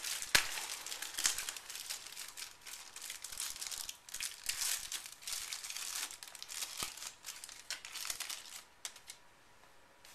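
Clear plastic packaging crinkling and tearing as a white outlet cover plate is unwrapped, in dense irregular crackles that die away about nine seconds in.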